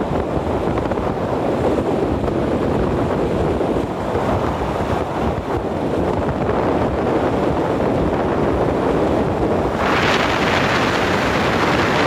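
Steady rushing wind and tyre noise of a car driving on a wet road, heard from the cabin by the side window. About ten seconds in the rush turns suddenly louder and hissier.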